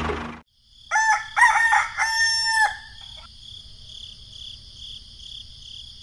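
A rooster crowing once: a multi-part cock-a-doodle-doo lasting about two seconds, starting about a second in. A faint, steady, high-pitched background continues after it.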